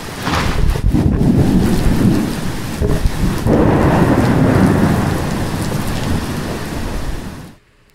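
Thunder from a close lightning strike: a sharp crack just after the start, then a loud low rumble lasting several seconds over heavy rain. It cuts off abruptly near the end.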